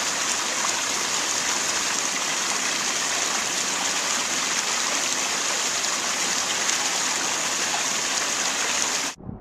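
Water rushing steadily through a concrete channel, a loud even hiss that cuts off suddenly near the end.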